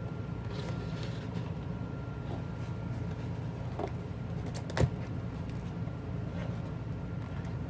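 Steady low background hum with a faint, thin high tone running through it, and a few light clicks; one sharper click comes about five seconds in.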